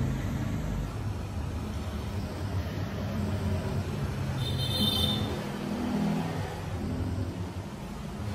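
Steady low rumble of background noise, with a brief high-pitched tone about four and a half seconds in.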